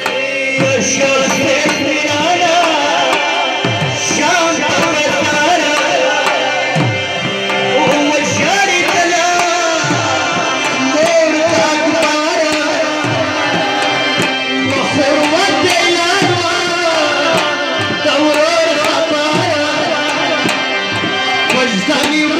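Live matam music: harmoniums holding chords under a wavering lead melody, with a dhol drum's deep strokes, each falling in pitch, about every second.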